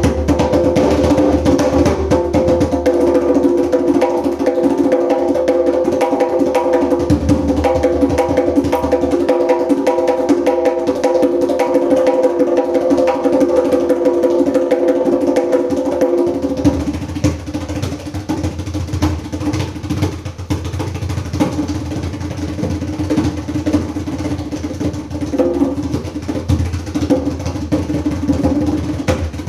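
Djembe played with bare hands in a fast, dense rhythm of ringing strokes. About sixteen seconds in, the playing turns a little quieter and deeper.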